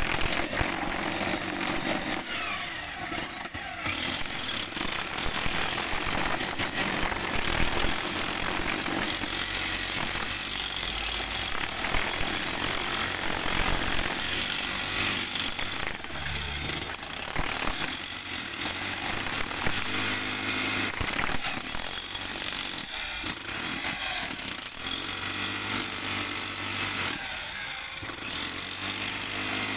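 Handheld jackhammer hammering rock and concrete in the floor of a trench, running in long stretches and stopping briefly a few times.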